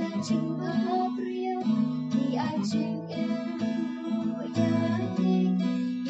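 Background music: an acoustic guitar strummed, its chords changing every second or two.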